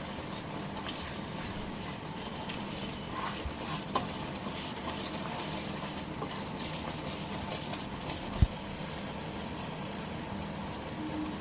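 Food sizzling and crackling in hot oil in a cooking pot, with a few clicks and one sharp thump about eight seconds in.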